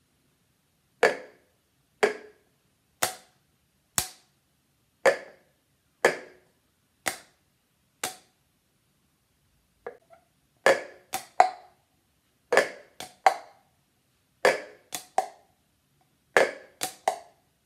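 Two hard plastic cups knocked and tapped on a tile floor in a cup-rhythm exercise. The first part is eight even beats, about one a second. After a short pause comes a figure of three quick knocks, repeated four times about every two seconds.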